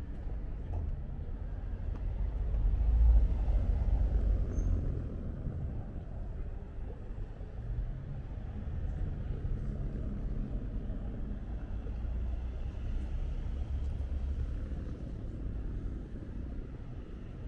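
Low rumble of city street noise, swelling for a few seconds near the start, then steady.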